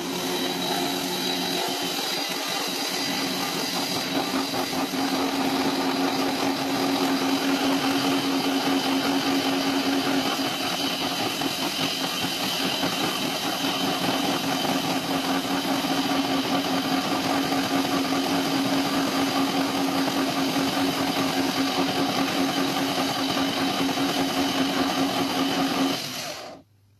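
Wooden-clog hollowing machine running, its cutters boring out the insides of two clogs: a continuous dense cutting noise over a steady motor hum. It stops suddenly near the end.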